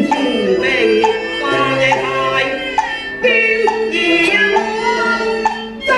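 A Cantonese opera singer singing a sung line over an accompanying instrumental ensemble, the voice gliding between held notes.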